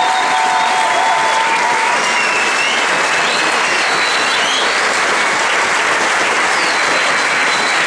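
A crowd applauding steadily, a dense even clapping that neither builds nor fades.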